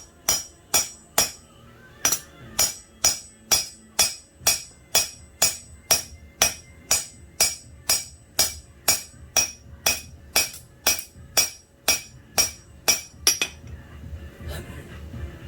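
Hand hammer striking steel on an anvil in a steady forging rhythm, about two ringing blows a second, with a short pause near the start. The hammering stops about thirteen seconds in.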